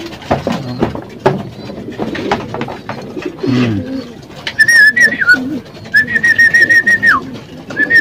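Racing pigeons cooing among light knocks and clatter, then, about halfway in, a man whistles three times: a held, trilling note that drops away at the end of each. It is his call to the young birds that feed is coming.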